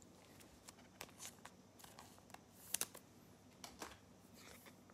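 Near silence with faint, scattered rustles and light clicks of trading cards being handled, one slightly louder click near the middle.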